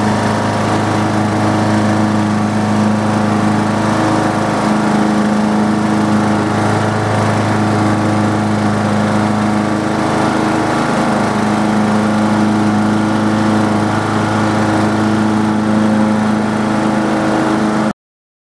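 Riding lawn mower's Briggs & Stratton engine running steadily as the mower drives across the lawn, cutting off suddenly near the end.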